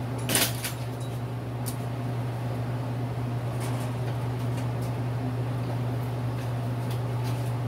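A steady low mechanical hum fills the shop, with a sharp clack about half a second in and a few light clicks after it.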